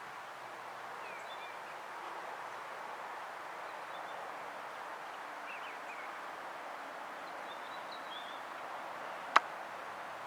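Steady outdoor background hiss with a few short bird chirps scattered through it, and a single sharp click about nine seconds in.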